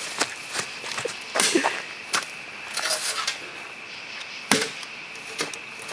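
Several sharp knocks and scuffs at irregular intervals over a steady high drone.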